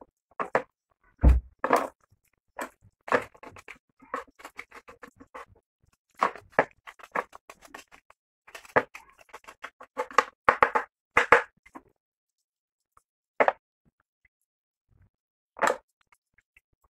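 Knife cutting up a raw chicken on a board: irregular sharp knocks, quick runs of clicks and a heavy thud about a second in.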